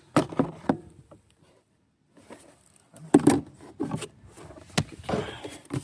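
Parts being handled and fitted by hand: a few sharp knocks and clatters, a short quiet pause, then more knocks and rattling.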